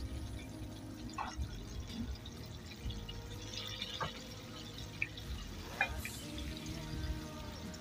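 Chicken karaage deep-frying in oil in a cast-iron skillet: a steady bubbling sizzle with a few sharp pops scattered through it, the loudest near 4 and 6 seconds in.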